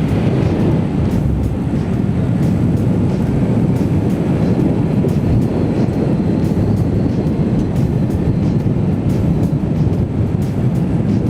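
Steady low rumble of a vehicle in motion: road noise and wind.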